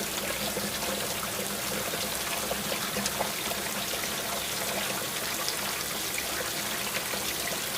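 Steady rain sound: an even hiss of falling water with many small scattered drip ticks.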